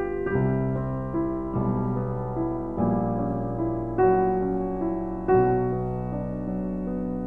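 Slow solo piano music, a new chord struck about every second and a quarter and left to ring.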